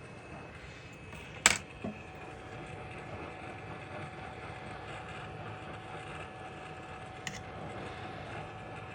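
Hot air rework station blowing steadily while reflowing a phone motherboard, with a sharp click about one and a half seconds in and a smaller click later.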